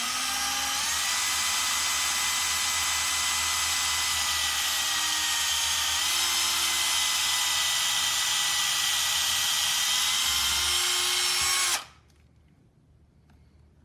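Ridgid cordless drill running steadily with a 3/32-inch bit, drilling a small pilot hole straight down through a polycarbonate paddle's neck and the fiberglass rod glued inside it. The motor whine holds nearly level the whole time and cuts off abruptly about two seconds before the end.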